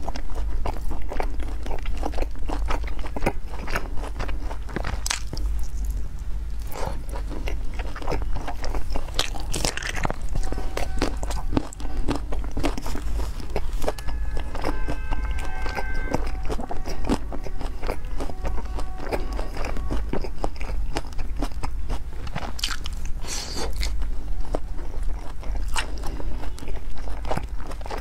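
Close-miked ASMR eating: biting and chewing mouthfuls of red-braised pork belly, with a dense run of small wet mouth clicks over a low steady hum.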